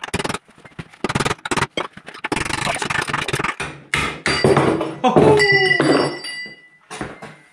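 Hammer blows knocking the cut-through remains of a worn dipper arm bush out of a mini digger's arm: an irregular run of sharp metal strikes, coming thick and loud about four to six seconds in, with metal ringing after the heaviest ones.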